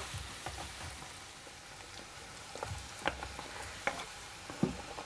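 Chopped onion and carrot sizzling in oil in a frying pan. In the second half come several sharp knocks as diced raw potato is pushed off a wooden cutting board into the pan with a wooden spatula.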